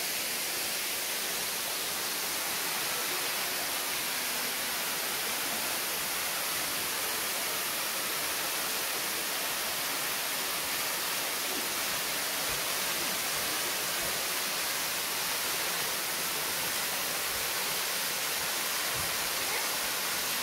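Waterfall plunging into a pool below, a steady, unbroken rushing hiss.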